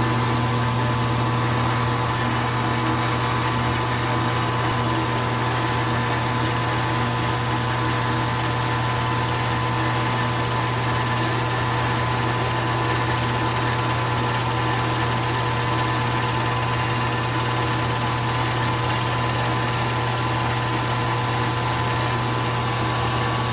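A small benchtop milling machine running steadily as it mills an aluminium block. Its motor and spindle give a steady low hum with a few higher whining tones.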